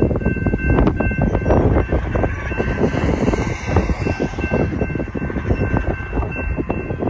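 Electronic railroad crossing bell (a GS Type 2 E-Bell) ringing steadily while the crossing is activated for an approaching train and the gates come down. Heavy wind buffets the microphone underneath it.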